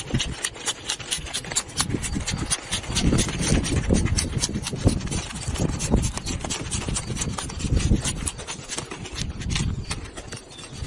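Dense crisp crackling and snapping of tough artichoke bracts being cut and stripped with a knife, with irregular low thumps of handling or wind on the microphone.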